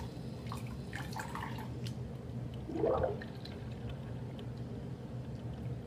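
Water dripping and sloshing as a small basin of water is emptied, with faint wet clicks of toys and hands over a steady low hum. A brief pitched sound with a sliding pitch comes about three seconds in.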